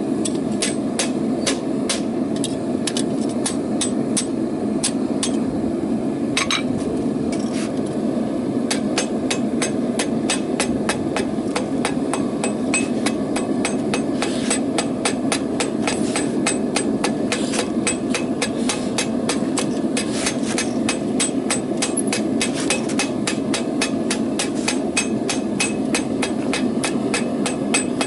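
Hand hammer forging a piece of 1/2 inch rebar on an anvil: sharp ringing blows, a few spaced strikes at first, then a fast, steady run of about three to four blows a second. A steady rushing noise sounds under the strikes.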